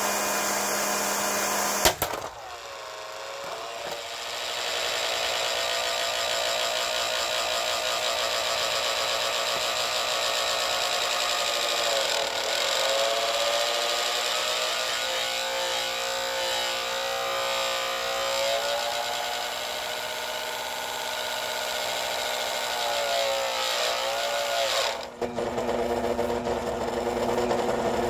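Vintage Proctor Silex blender motor running flat out, being run until it burns out. A click about two seconds in changes its sound to a whine that wavers and sags in pitch several times. Near the end it changes suddenly to a lower, rougher running sound.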